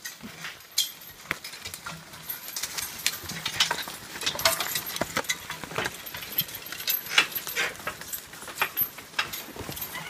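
Irregular metallic clanks, jangles and knocks with hoofbeats from a draft-horse team pulling a steel log trailer.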